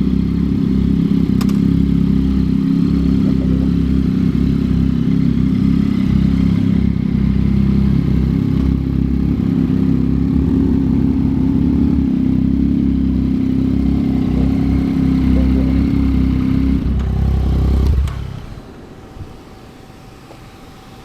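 Yamaha MT-09's three-cylinder engine running steadily through a Yoshimura R11 exhaust, then stopping suddenly near the end.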